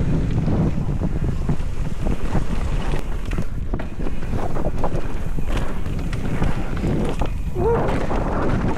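Wind buffeting a helmet or body camera's microphone while riding a mountain bike on a trail: a steady, loud rumbling rush.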